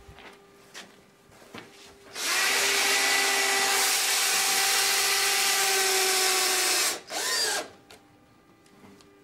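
Cordless drill-driver running steadily for about five seconds, driving a long screw at an angle through a timber batten into wood-fibre insulation board, then a short second burst of the motor near the end.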